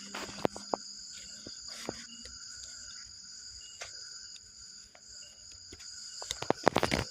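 Steady high-pitched chorus of crickets and other night insects, with a few scattered clicks and a quick run of louder knocks and rustles near the end.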